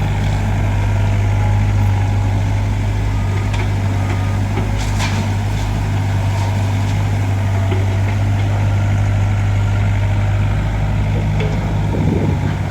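Heavy diesel engine of a construction machine running steadily with a deep hum, with a brief metallic rattle about five seconds in.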